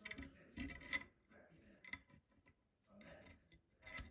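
Faint metal-on-metal scraping and light clicks of Marlin 336 lever-action rifle parts, the carrier and its neighbours, being moved by hand inside the steel receiver. The sound comes in several short bursts and is loudest about a second in.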